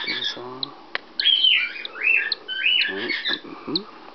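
Cockatiel calling: three loud, shrill calls in quick succession, each rising and then dropping in pitch, with short faint chirps between them.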